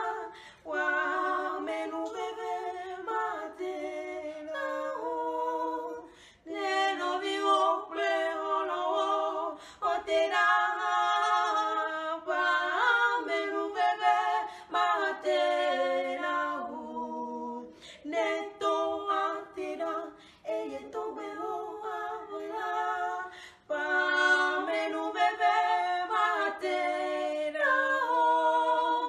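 Two women singing a gospel song a cappella in Ewe, with no instruments, in phrases broken by short pauses.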